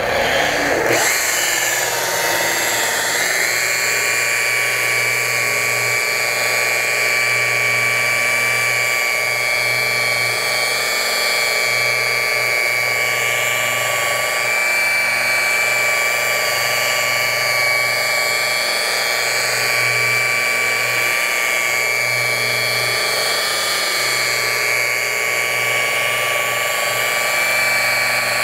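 Electric machine polisher spinning up over the first few seconds into a steady whine, running under load as it works compound into a car's painted hood panel.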